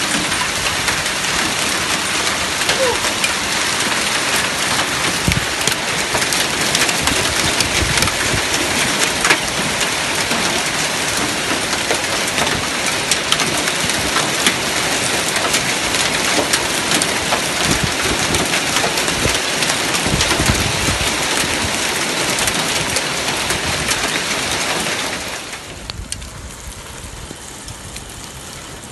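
Hailstorm: hailstones and heavy rain pelting hard surfaces, a dense, loud hiss full of sharp ticks from the impacts. Near the end it drops suddenly to a quieter, steadier rain hiss.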